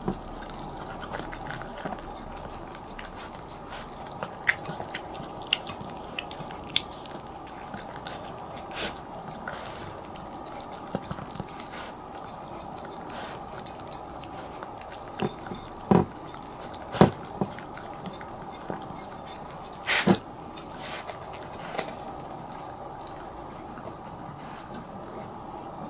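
A Bichon Frise eating from a ceramic plate and licking it clean: wet chewing and lapping with scattered small clicks. There are a few louder clicks or knocks about 16, 17 and 20 seconds in.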